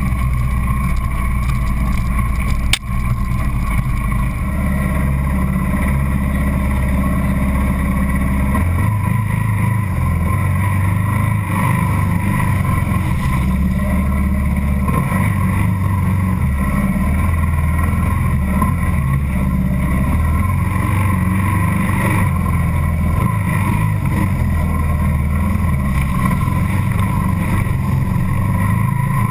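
A 650 cc single-cylinder dual-sport motorcycle engine and exhaust running close to the microphone while riding, its note stepping up and down with throttle and gear changes. A single sharp knock about three seconds in.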